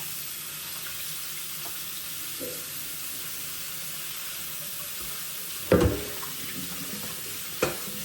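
A steady hiss runs under the scene, and near the end two sharp knocks, about two seconds apart, sound from a utensil striking a plate or pan.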